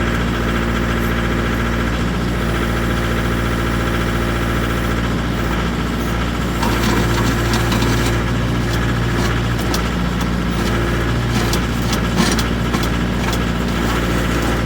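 Mahindra 2538 tractor's three-cylinder diesel engine running steadily while driving the backhoe hydraulics, working harder for about three seconds midway as the bucket and thumb pinch and lift a large rock. A few short knocks near the end.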